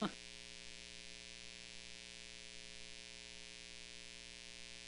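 Steady electrical mains hum with a hiss, from the meeting room's microphone and sound system.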